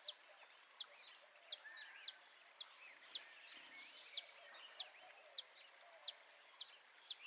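A small bird giving high, sharp chip notes, about one every half second, with fainter bird calls from other birds underneath.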